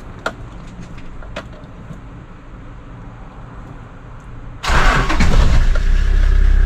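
Toyota Land Cruiser Troop Carrier engine started about four and a half seconds in: it cranks briefly, catches and settles into a steady idle, after a few faint clicks before the start.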